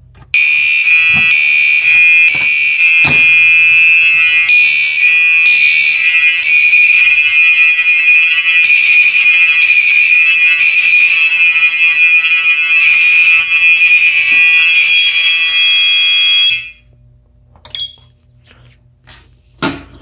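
Gentex Commander 2 and Gentex SHG fire alarm horns sounding together in continuous alarm, set off by a pulled Fire-Lite BG-12 manual pull station. The loud, harsh horn tone holds steady, then cuts off suddenly about sixteen seconds in.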